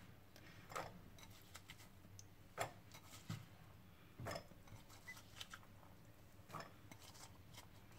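Faint, scattered soft taps and clicks as diced raw potato is tipped and pushed from a glass bowl into a glass bowl of buckwheat-flour batter.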